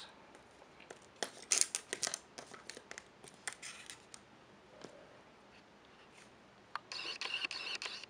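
Light clicks and taps of small electronic parts being handled: a disassembled Samsung Galaxy S3's logic board and plastic frame pieces moved on paper, with a short scratchy rustle about seven seconds in.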